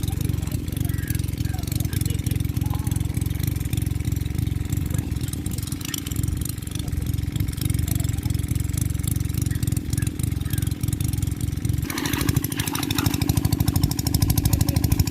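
A small engine running steadily with an even, rapid beat. About twelve seconds in its sound changes and becomes a little louder and brighter.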